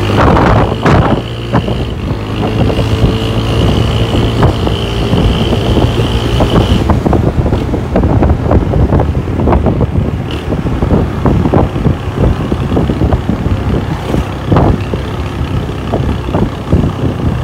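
Honda SH150i scooter's single-cylinder four-stroke engine running on the move: a steady drone with a high whine over it that stops about seven seconds in. After that the sound turns into rapid, irregular crackling.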